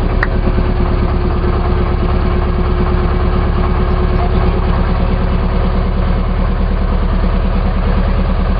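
Boat engine running steadily, a loud low drone with an even pulsing beat.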